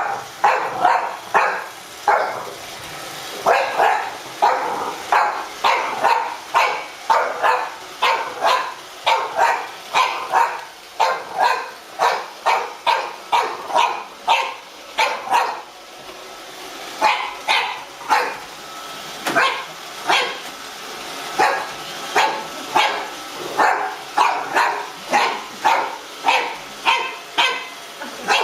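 French bulldog puppy barking over and over, about two sharp barks a second, in runs broken by short pauses.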